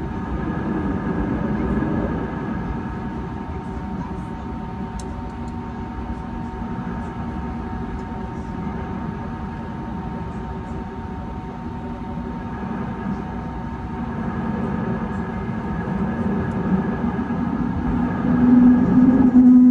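Airbus A320neo jet engines heard from inside the cabin while taxiing: a steady hum with several steady tones over a low rumble. It grows louder in the last few seconds, and a strong steady low drone comes in near the end.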